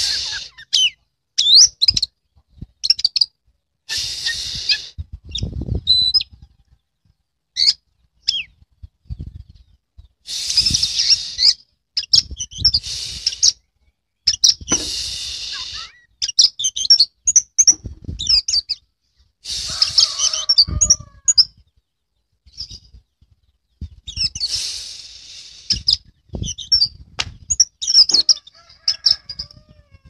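Oriental magpie-robin (kacer) singing in its cage: quick, clear whistled phrases broken every few seconds by harsh, hissing notes about a second long, with scattered low knocks.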